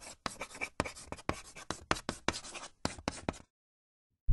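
Handwriting sound effect: a quick run of short scratching strokes, about four or five a second, stopping abruptly about three and a half seconds in.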